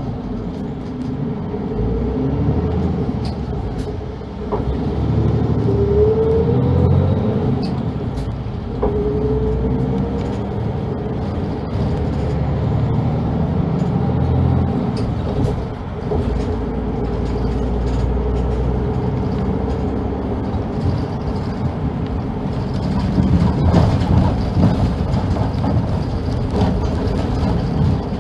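Heard from inside the cabin: a city bus pulls away and accelerates, its engine and drivetrain whine rising in pitch twice as it goes up through the gears. It then runs steadily along the road at speed.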